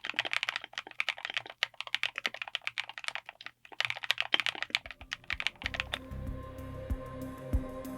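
Typing on a mechanical keyboard fitted with linear switches: a dense run of keystroke clacks. The typing stops about five and a half seconds in, and soft background music starts.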